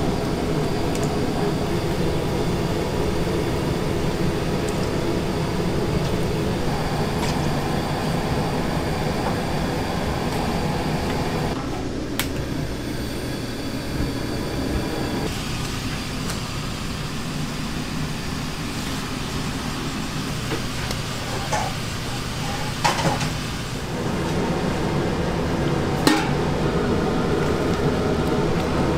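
Noodle-shop kitchen noise: a constant hum and hiss of machinery, with a few sharp clinks or knocks in the second half.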